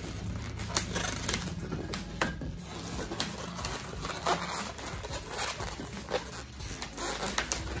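Inflated latex twisting balloons (160s) rubbing, creaking and squeaking as they are pinched and twisted into chain links, with many short irregular clicks and rubs.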